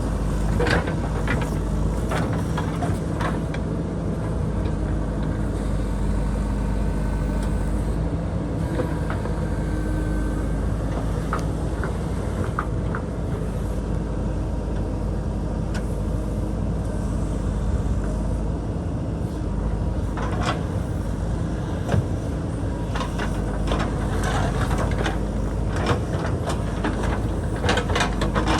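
JCB backhoe loader's diesel engine running steadily under load while digging, with sharp knocks and scrapes of the bucket against rock, bunched near the start and again in the last several seconds.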